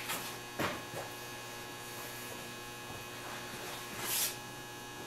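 Steady electrical mains hum, with a faint click about half a second in and another short tick near four seconds in.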